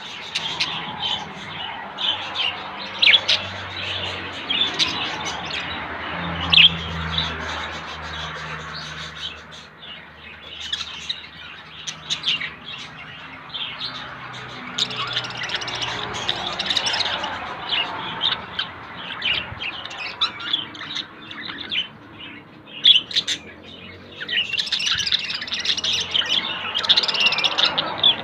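Several budgerigars chattering: a steady run of short chirps and warbles, busier and louder near the end.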